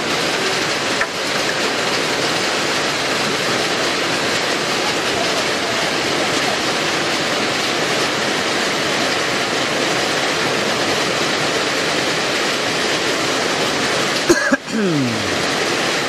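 Heavy rain falling in a steady downpour, a dense, even rushing hiss.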